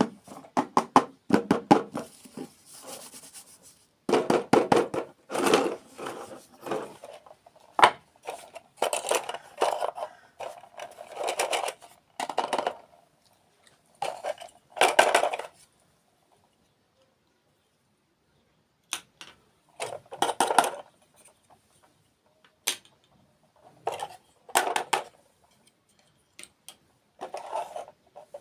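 Close-miked dessert eating: bursts of chewing and crunching with clicks and clinks of utensils on dishes, broken by short pauses and a few seconds of silence past the middle.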